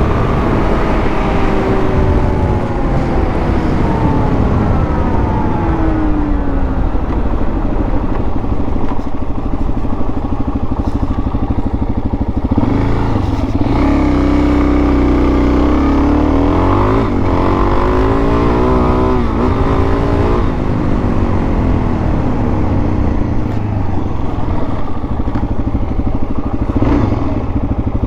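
Dual-sport dirt bike engine heard from the bike while riding, its pitch falling over the first several seconds as it slows, then rising and dropping again through the middle as it accelerates and changes gear, with steady wind noise.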